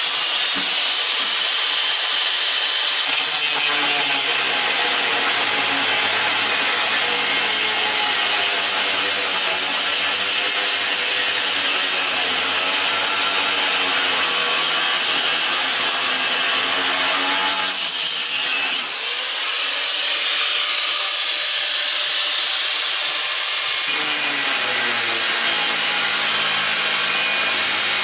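Corded angle grinder with a cutting disc cutting through a cast-iron grill grate: a steady, loud grinding that briefly dips about two-thirds of the way through.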